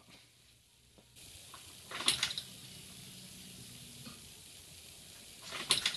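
Subaru WRX's electric fuel pump priming with the ignition switched on, refilling and pressurising the fuel rail after a fuel filter change: a faint steady hum over a low hiss that stops about four seconds in. Two short loud noises stand out, about two seconds in and near the end.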